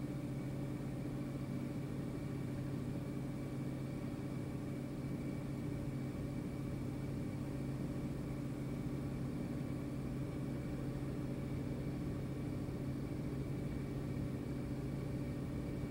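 Steady electrical hum of a few fixed low tones over a faint even hiss.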